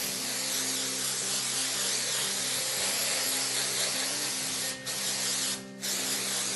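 Aerosol can of spray adhesive hissing steadily for about four and a half seconds, then with two short breaks near the end as the spraying is stopped and restarted.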